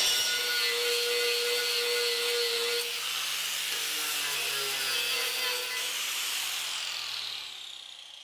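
Angle grinder with a cutting disc cutting through a steel chassis rail, a steady high-pitched whine and grinding hiss. In the last couple of seconds it winds down, the pitch falling and fading as the disc spins down.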